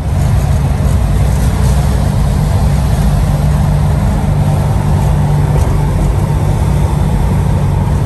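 Air-cooled Volkswagen bus engine and road noise heard from inside the cab while cruising at a steady speed. It is a loud, steady low drone that does not rev up or down.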